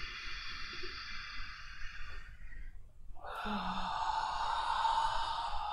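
A woman breathing audibly and slowly: a long, drawn-in breath through the nose, a short pause about three seconds in, then a louder, breathy out-breath like a sigh.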